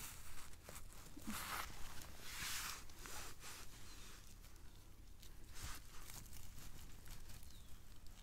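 Hands rustling in forest moss and pulling sheep polypore mushrooms free: a few short, faint tearing rustles.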